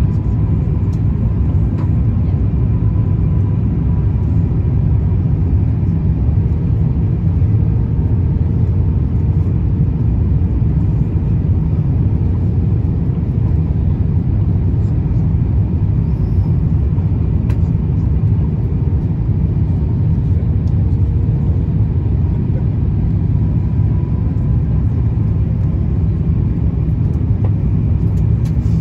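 Steady cabin rumble inside an Airbus A350-1000 in descent: airflow over the fuselage and the Rolls-Royce Trent XWB engines, with a faint steady hum over it.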